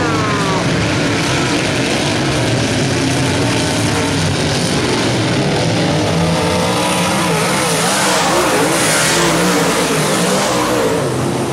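Several dirt-track modified race cars' engines running together on the track, their pitch rising and falling as the drivers get on and off the throttle.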